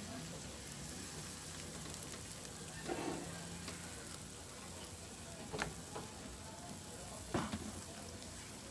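Pancake batter sizzling steadily in a hot nonstick frying pan, with a few light clicks spread through it.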